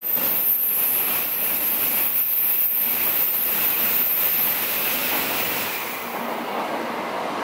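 Tokaido Shinkansen train passing through the station at high speed without stopping: a loud, steady rushing noise. It eases off about six seconds in as the last car goes by.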